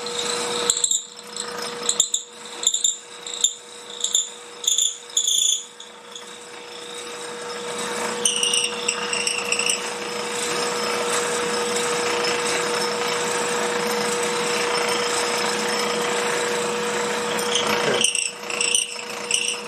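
Wood lathe running with a steady hum while a twist drill bit in a tailstock drill chuck bores into a spinning burl blank. Short cutting bursts come as the bit is fed in and backed out, several in the first six seconds and again near the end, with a long stretch of continuous cutting in between.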